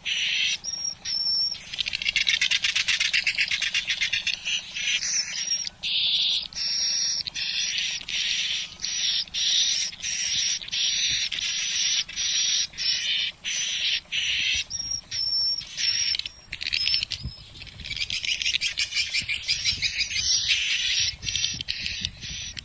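Swiftlet calls from a swiftlet-house lure recording: high-pitched chirps repeating almost without pause, with short gaps between them. Two stretches of rapid buzzing trills stand out, about two seconds in and again near the end.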